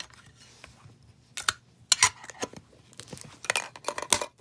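Clicks and rustles of hands handling a Pokémon card tin and the booster packs inside it, a string of sharp taps starting about a second and a half in and coming thicker near the end.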